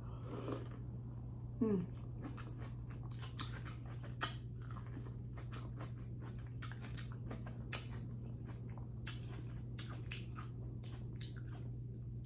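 Close-miked biting and chewing of buttered corn on the cob: many small crisp clicks and crunches over a steady low hum, with a brief falling hum of a voice near two seconds in.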